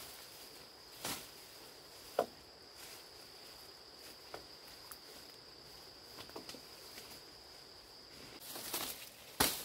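An insect trills steadily on one high tone, with a few scattered light clicks and knocks. The trill stops near the end, and a louder knock follows.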